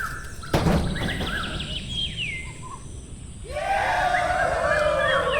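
Birds chirping: scattered short chirps, a single knock about half a second in, then a dense chorus of many overlapping chirps from about three and a half seconds on.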